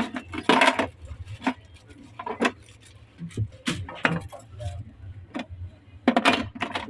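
Plastic fridge accessories, such as the ice cube tray, being handled: a run of irregular clicks and clattering knocks.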